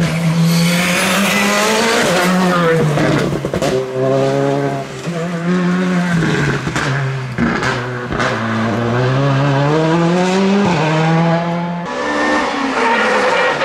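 Rally car engines at full revs, the engine note climbing and dropping several times as the driver shifts gears through the corners, with a few sharp exhaust cracks. Near the end the sound cuts abruptly to another rally car, a Renault Clio, coming on with its engine revving.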